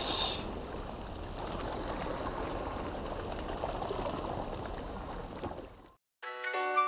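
A steady, even rushing outdoor noise for about six seconds. It cuts off, and after a brief silence music with sustained pitched notes begins near the end.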